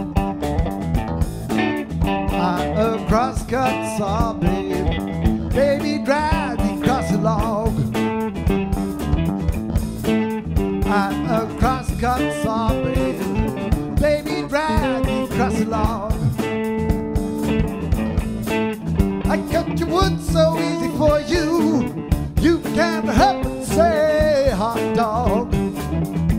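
Blues music led by guitar, playing continuously.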